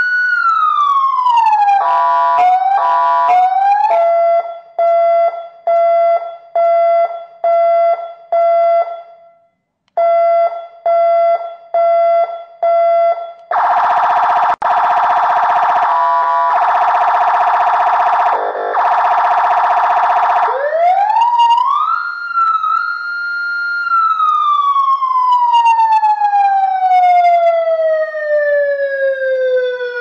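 AS928 200-watt 12-volt electronic siren stepping through its tones: a falling wail, then a run of evenly spaced beeps, then a harsh steady buzzing tone, then a wail that rises, holds briefly and falls slowly.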